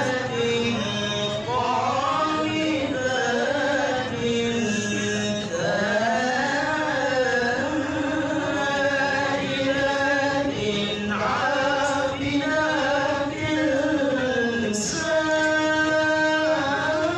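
A man reciting the Qur'an in melodic tilawah style into a microphone, holding long ornamented notes that glide up and down.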